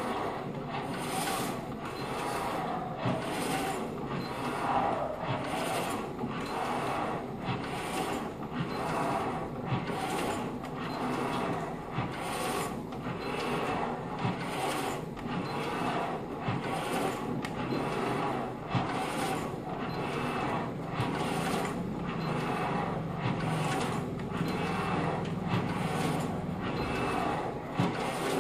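Kayak paddling ergometer worked hard at a high resistance setting: its resistance unit whirs steadily, with a surge and swish at each paddle stroke, a little more than one stroke a second.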